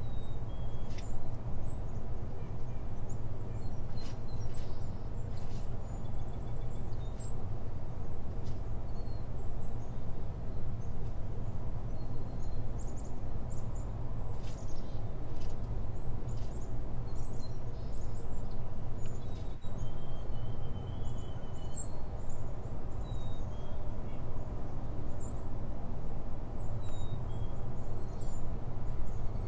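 Steady low background hum with small birds chirping faintly here and there throughout.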